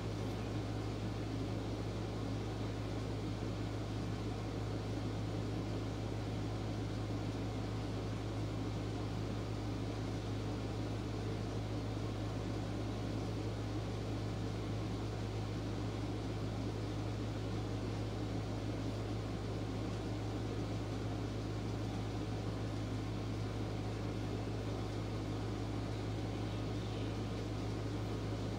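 A steady low hum under an even hiss, unchanging throughout, with no music or speech.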